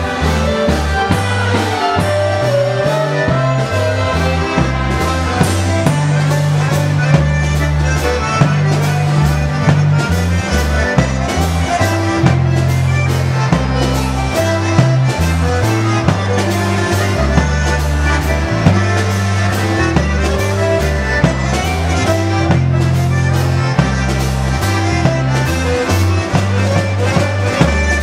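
Live polka band playing an instrumental passage of a waltz: concertina melody over electric bass and drums, with a steady beat.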